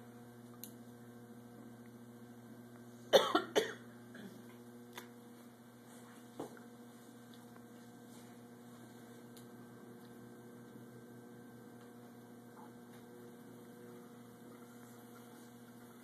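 A short fit of about three coughs about three seconds in, over a steady electric hum that runs throughout; a few faint clicks follow.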